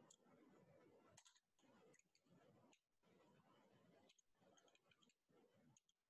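Near silence, with faint, irregular computer keyboard clicks as keys are typed.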